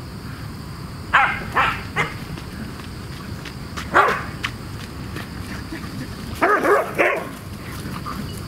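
A dog barking in short bursts: three barks about a second in, a single bark near four seconds, and a quick run of barks between six and seven seconds.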